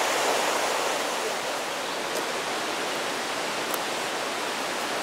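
Steady rushing background noise with two faint ticks, about two seconds in and again near four seconds.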